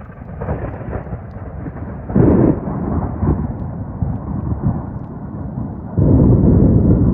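Thunder rumbling, with a loud surge about two seconds in and another, longer loud roll starting near the end.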